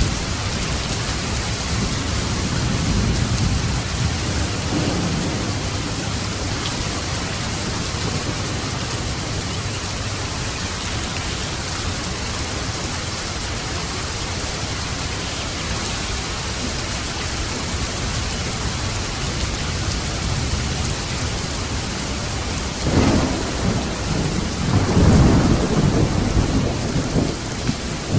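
Steady heavy rain, with low rolls of thunder a few seconds in and a louder, longer roll near the end.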